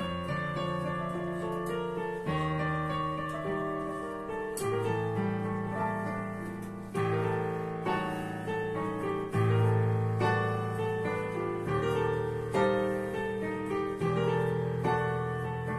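Digital piano played with both hands: a melody over held bass notes that change every second or two, getting louder about nine seconds in.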